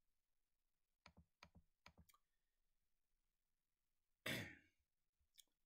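Near silence, broken by a few faint clicks a second or so in, then one short breath exhaled by the speaker, like a sigh, a little past four seconds.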